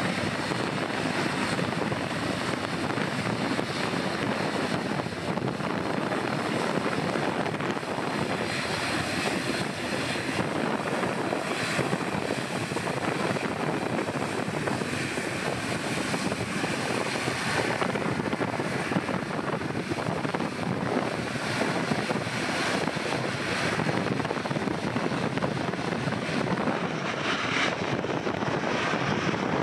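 Airliner engines running on the runway: a steady, even rush of engine noise with no clear rise or fall.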